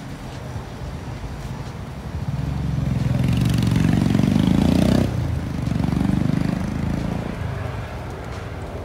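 Street traffic: a motor vehicle passes close, swelling up to its loudest about four to five seconds in and dropping away, then a second, quieter pass follows.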